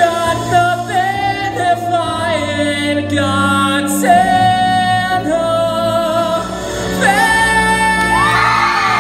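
Male voice singing the closing long-held notes of a show tune into a handheld microphone over an instrumental backing track. The audience starts cheering and whooping about eight seconds in.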